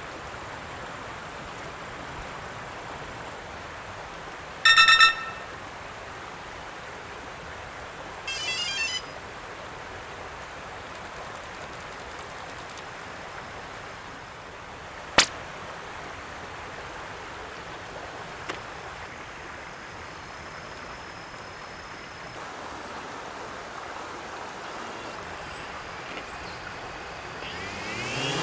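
DJI Phantom quadcopter being readied on the ground: a loud electronic beep about five seconds in and a warbling run of electronic tones a few seconds later, a sharp click around the middle, over a steady outdoor hiss. At the very end its four motors start, the propeller whine rising in pitch as they spin up.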